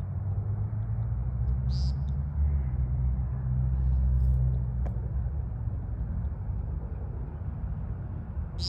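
A low rumble that swells in the middle and then eases off, with a single short high chirp about two seconds in.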